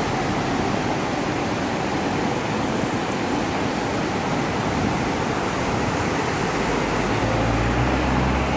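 Mountain stream rushing over boulders: a steady roar of white water, with a low rumble swelling near the end.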